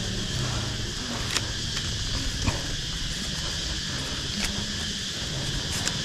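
Steady outdoor insect chorus, a continuous high-pitched drone, with a few faint sharp clicks scattered through it.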